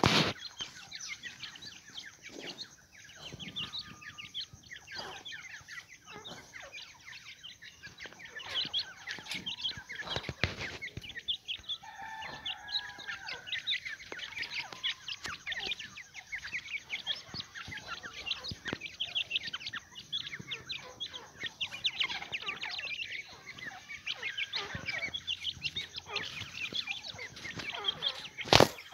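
Quail calling: many short high-pitched chirps and soft clucks, with a few longer gliding notes in the middle. A sharp knock comes near the end.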